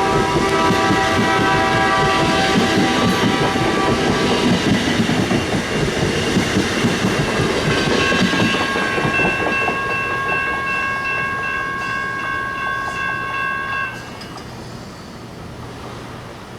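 Air horn of an MP15DC diesel switcher locomotive sounding a multi-note chord that fades out about four seconds in, over the rumble of the train rolling past. A second, steadier horn chord sounds from about eight seconds in and cuts off suddenly near the end.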